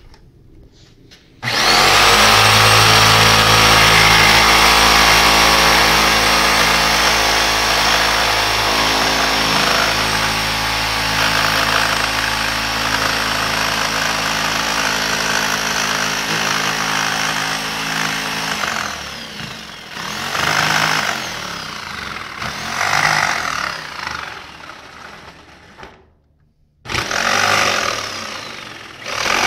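Electric jigsaw cutting through a cured fibreglass sheet. The motor starts about a second and a half in and runs steadily while the blade cuts. In the later part it comes in shorter, uneven spells, with a brief stop near the end before it starts again.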